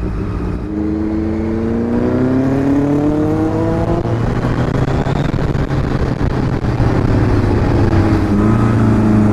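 Kawasaki Ninja 1000's inline-four engine accelerating through town traffic, its pitch rising steadily for about three seconds and then settling. A second engine note appears near the end, over constant low road rumble.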